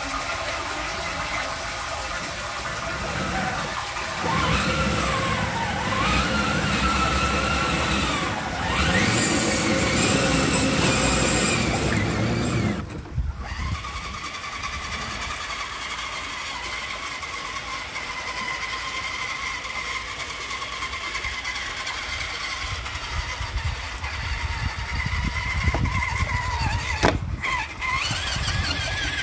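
An RC rock crawler's electric motor and gears whining, the pitch rising and falling with the throttle as it drives through shallow water. The sound drops out briefly and changes about 13 seconds in.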